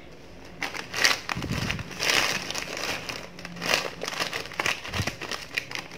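Plastic snack bag crinkling in irregular bursts as it is held open and handled, the crisp crackers inside rustling; it starts about half a second in.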